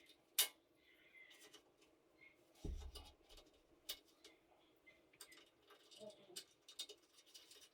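Faint scattered clicks and taps, with one dull thump a little under three seconds in, from shower door parts and hardware being handled.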